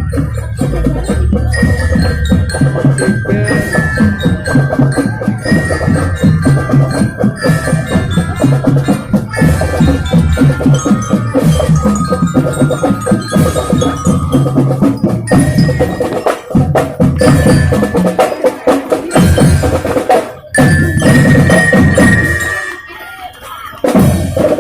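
Marching band playing: a bell-lyra (glockenspiel) melody carried over a steady drum beat, with a short drop in volume near the end before the band comes back in.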